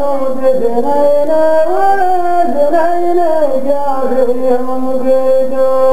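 Male chanting of a qalta verse: a slow, drawn-out melody with long held notes that slide between pitches, with no drum.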